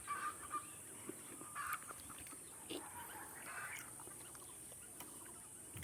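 Faint, scattered bird calls, a few short calls spread across the clip, over a steady high hiss.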